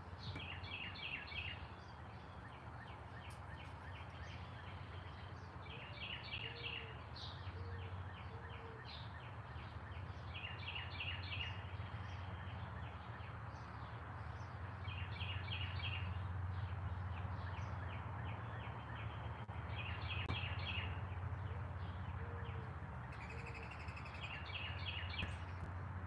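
A songbird repeating the same short song phrase six times, about every four to five seconds, over a steady low background hum. Twice a few lower, softer notes come in between the songs.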